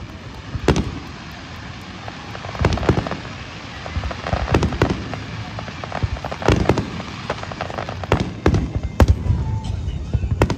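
Aerial firework shells bursting over the harbour: a string of sharp bangs every second or two, some in close pairs, over a low rumble.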